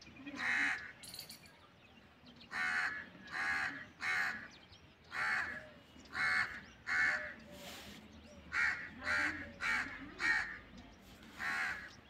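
Crow cawing repeatedly: about a dozen harsh calls, each under half a second, some single and some in quick pairs.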